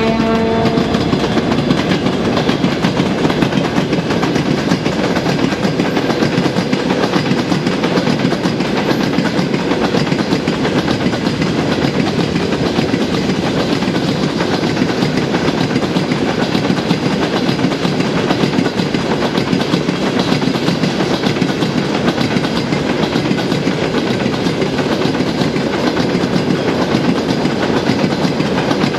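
A long freight train of loaded open wagons rolling past behind two ST44 'Gagarin' diesel locomotives, the wheels clattering steadily over the rail joints under the continuous engine and rolling rumble. A locomotive horn note cuts off about a second in.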